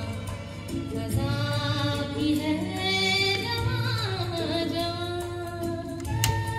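A vinyl record playing on a Cosmic turntable: singing with musical accompaniment. There is a sharp click near the end, as the turntable's front control is pressed.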